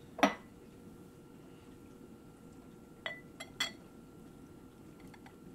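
A glass beer bottle and a drinking glass knocking together: one sharp clink just after the start, then three quick light clinks about three seconds in as the bottle neck meets the glass rim and the beer starts to pour.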